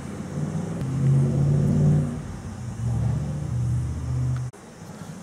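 An engine running with its pitch stepping up and down as it revs, loudest about two seconds in, then cutting off abruptly near the end.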